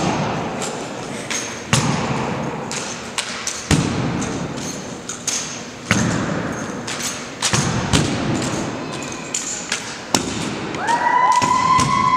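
Drill rifles being spun, caught and struck against a hardwood gym floor: separate sharp thumps and slaps every second or two, echoing in the large hall. Near the end a steady high whistle-like tone starts and holds.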